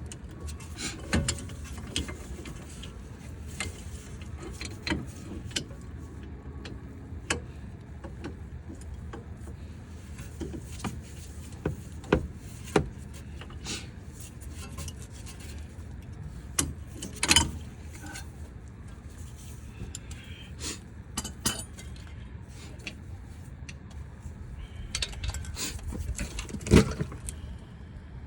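Steel hand tools and sockets clinking and knocking against metal at irregular intervals, with the sharpest knocks about 17 seconds in and near the end, during work on the wheel bearing's bolts.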